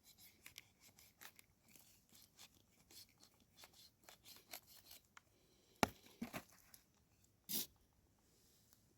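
A poplar mushroom (Cyclocybe aegerita) being cut from its cluster at a stump: faint crisp snipping and scraping, then a few louder knocks about six seconds in and a short rustle at about seven and a half seconds.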